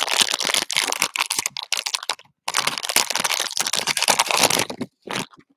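Foil wrapper of a 2020 Panini Select trading-card pack crinkling and tearing as it is opened by hand and the cards are pulled out: two long stretches of dense crackling, then a short burst near the end.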